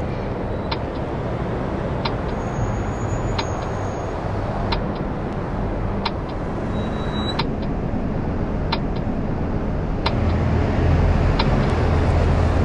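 A steady low rumble with a sharp tick about once a second, and the rumble swells near the end.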